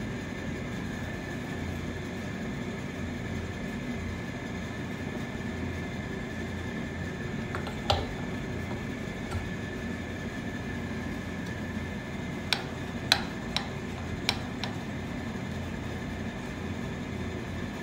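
Light clicks of the Fellow Ode grinder's metal burr parts being handled and fitted by hand: one click about halfway through, then a quick run of five a few seconds later, over a steady room hum.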